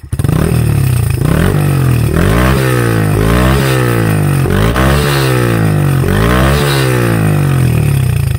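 Honda Monkey 125's single-cylinder four-stroke engine revved repeatedly through an aftermarket Tenshi exhaust. The pitch rises and falls several times; loud.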